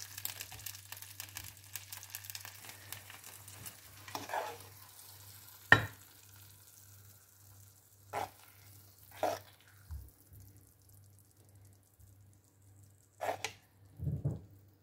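A frying pan being stirred with a spatula, the filling sizzling faintly. This is followed by several short scrapes and knocks of a utensil against the pan, the sharpest about six seconds in.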